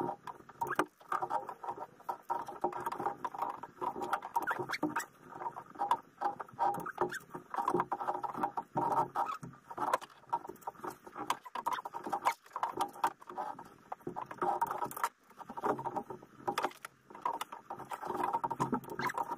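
Hand ratchet clicking in quick, irregular bursts, mixed with the scrape and tap of tools on engine parts, as bolts are worked on the Honda Pilot's engine.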